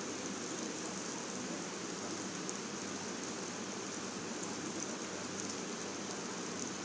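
Blended spice paste of garlic, onion, green chillies and fresh turmeric sizzling in hot oil in a non-stick wok as it is sautéed: a steady frying hiss with a few faint ticks.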